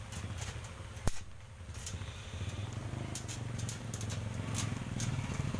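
A machine or engine running with a steady low hum, with scattered sharp clicks and one loud knock about a second in.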